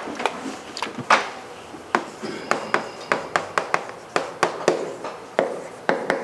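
Chalk striking and scraping on a chalkboard as an equation is written: a run of quick, sharp, irregular clicks, about three or four a second, from about two seconds in. Before it, a felt board eraser is rubbed across the board in a couple of short swipes.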